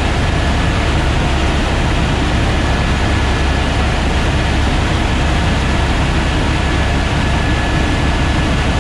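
Airbus AS350 Écureuil helicopter in flight: the rotor and turbine make a steady, loud drone with a thin high whine held at one pitch.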